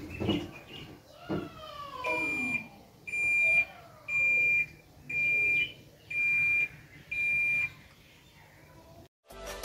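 Haier top-load washing machine sounding its end-of-cycle signal: six identical high beeps, about one a second, as the timer reaches zero. Just before the beeps, a falling whine as the drum's spin winds down.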